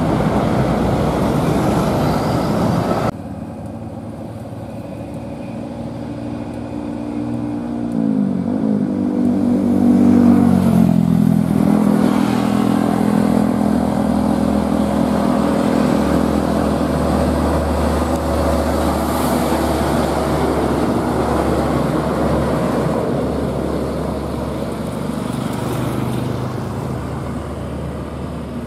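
Heavy diesel trucks passing close by: a loud rush of engine and tyre noise that cuts off suddenly about three seconds in, then the deep drone of a FAW JH6 tractor unit's diesel engine, its pitch falling between about eight and eleven seconds in as it slows, then holding steady as it rolls past.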